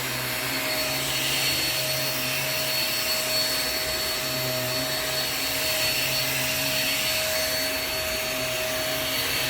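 Hoover React QuickLift upright vacuum cleaner running on carpet, with a steady motor whine over a rushing hiss that swells and fades every couple of seconds.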